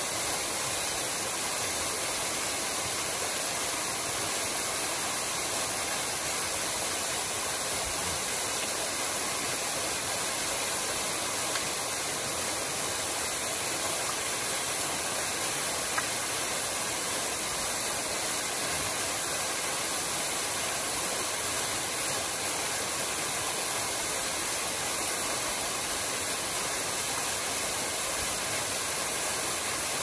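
Waterfall rushing steadily: an even, unbroken hiss of falling and splashing water.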